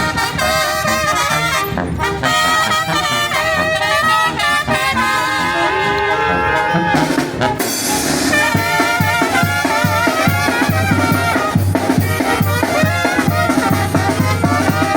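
Zacatecan tamborazo brass band playing: trumpets and trombones carry a wavering melody over a steady bass drum beat, with a held low bass line joining about halfway through.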